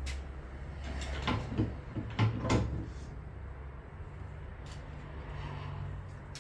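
A few short knocks and clatters of parts or a panel being handled, the loudest about two seconds in, over a low steady hum.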